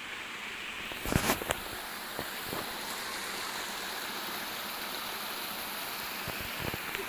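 Steady rushing of stream water spilling out of a concrete culvert, with a brief loud knock about a second in.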